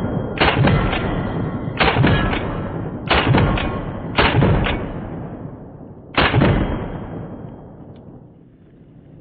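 Benelli M4 12-gauge semi-automatic shotgun fired five times in about six seconds, each shot followed closely by one or two smaller sharp cracks. After the last shot the sound dies away.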